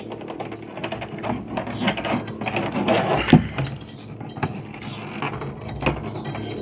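Small metal hose fittings clicking and scraping in the hands as a braided stainless hose end is assembled with a fitting tool. The clicks come irregularly, several a second.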